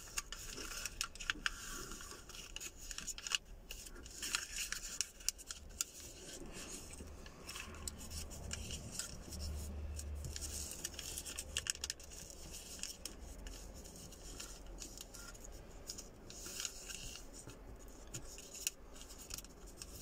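A sheet of A4 paper being folded by hand, crinkling and rustling as fingers lift an edge, reverse its creases and press the folds flat. It comes as soft, irregular crackles and scratches.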